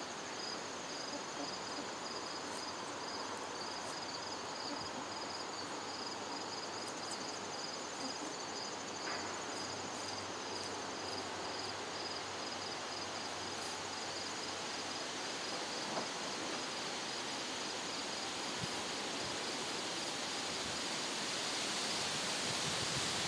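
Outdoor ambience dominated by insects trilling, a steady pulsing high-pitched chorus, over a low background hiss, with a few faint ticks.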